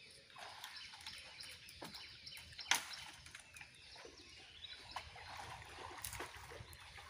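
Birds chirping and calling over faint riverside ambience, with a sharp click about two and a half seconds in and fainter clicks later.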